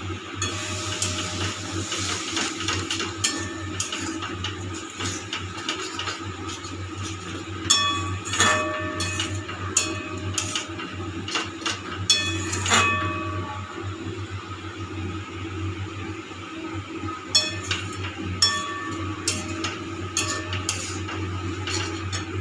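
Metal spatula scraping and knocking against a metal kadai as thick masala is stirred and scraped off the bottom, the pan ringing briefly after the harder knocks. The strokes come in irregular bunches, over a steady low hum.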